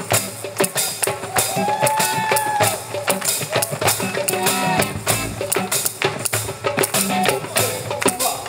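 Live percussion ensemble keeping a fast rhythm with hand claps in time and hand-drum strokes. A held note bends up and back down about a second and a half in.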